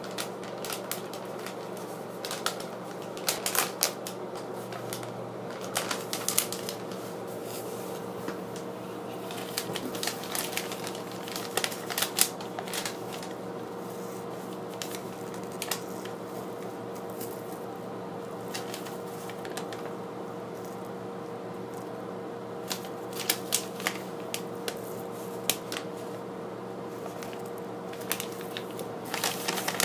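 Paper Happy Meal bag crinkling and rustling in irregular crackles as it is handled and turned, over a steady background hum.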